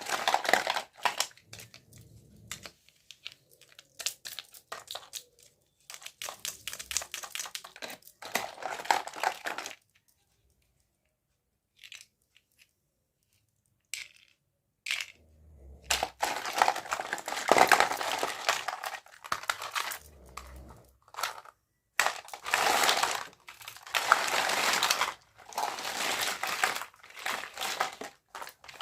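Plastic toy packaging being crinkled and torn open by hand, in irregular bursts of rustling with a pause of a few seconds near the middle.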